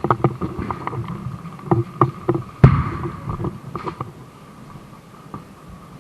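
Irregular sharp clacks and knocks, about a dozen in four seconds, the loudest about two and a half seconds in, dying away after that. A faint steady high tone runs underneath.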